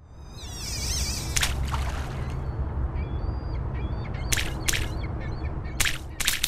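Harsh, crow-like bird caws, about five short calls scattered through, with a warbling high call near the start, over a steady low rumble.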